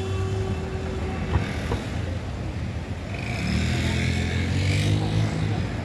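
City street traffic: car engines running at an intersection, with a car driving close past, louder for a couple of seconds from about three seconds in.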